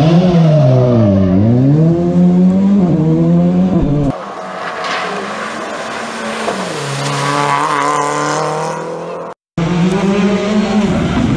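Rally car engines at race pace. First, one car's revs drop as it brakes into a tight hairpin and then climb again as it accelerates out; after an abrupt change, another car's engine runs under the hiss of spray as it drives through a water splash; after a brief dropout, a third car's engine comes in near the end.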